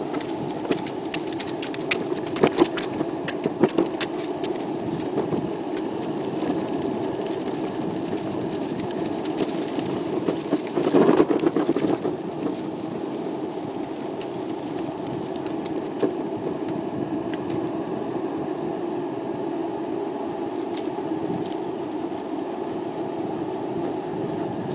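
Skateboard wheels rolling on a paved path, a steady rumble with scattered sharp clicks and a louder, rougher stretch about eleven seconds in.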